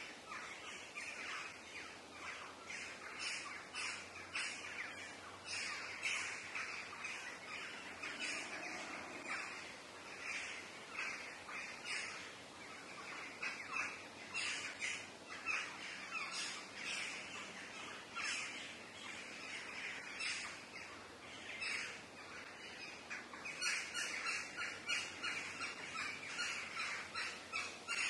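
Many birds chirping and calling at once: a steady, dense chatter of short calls with no pause.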